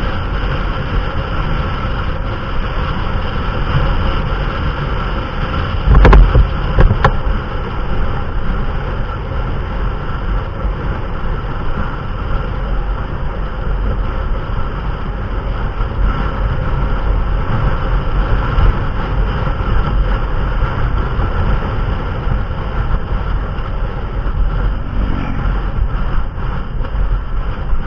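A vehicle engine running steadily with rumbling wind-like noise, as heard while on the move. Two sharp thumps come about six and seven seconds in.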